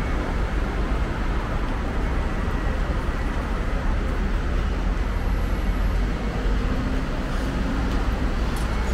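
Steady low rumble of city traffic ambience, with faint voices of people in the background.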